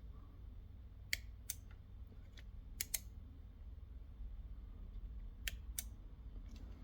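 Scattered light clicks and taps, about eight spread irregularly, of small tools or parts being handled, over a faint steady low hum.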